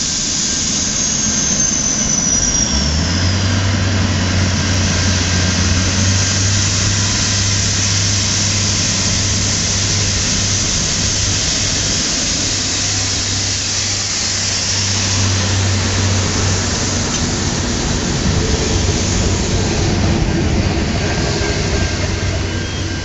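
Three-car 'Jumbo' diesel railcar set pulling away and passing: a high whine falls in pitch over the first few seconds. The engine's steady low drone comes in about three seconds in and fades by about seventeen seconds, over a rushing wheel-and-rail noise as the cars go by. Near the end a repeating high tone starts.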